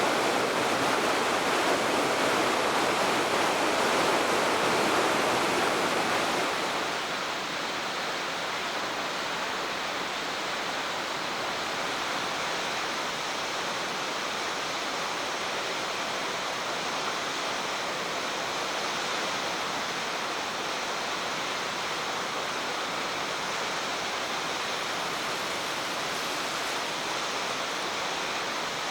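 Waterfall on a mountain stream, a steady rush of falling water. About six and a half seconds in it drops to a slightly quieter, duller rush.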